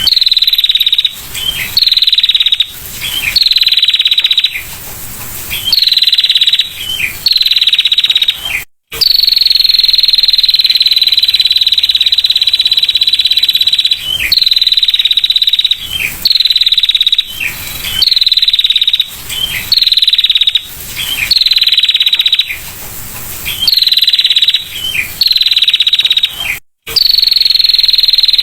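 Female prinia (prenjak) giving its rapid 'ngetir' trill: each call opens with a sharp note and runs into a fast, high buzzing trill that falls slightly, repeated about every two seconds. Two trills run on for several seconds, and the sound cuts out briefly twice.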